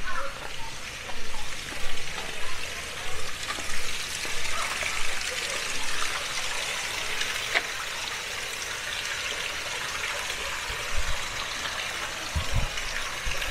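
Water running steadily, with a trickling, splashing rush.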